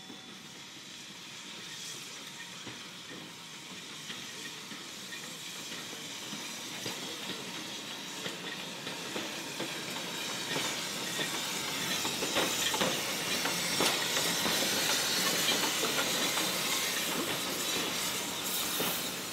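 Aspinall Pug no. 11243, a small 0-4-0 saddle-tank steam locomotive, moving slowly with steam hissing steadily and irregular clicks and rattles from its wheels and train. It grows louder as it draws near and passes, loudest a little past the middle.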